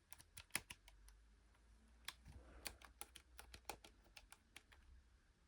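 Faint, irregular light clicks and taps of a plastic payphone and its handset being handled.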